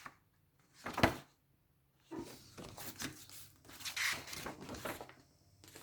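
Cardstock and paper of a handmade lapbook being handled: a sharp tap about a second in, then a few seconds of irregular rustling and sliding as flaps and cards are moved.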